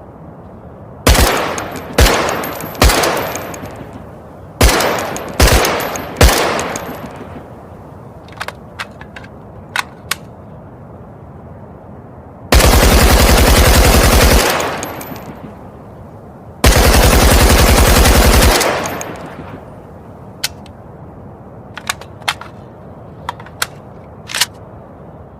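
AK-74U assault rifle firing: six single shots in two groups of three, each followed by a fading echo, then two fully automatic bursts of about two seconds each. Small clicks sound in the pauses between the firing.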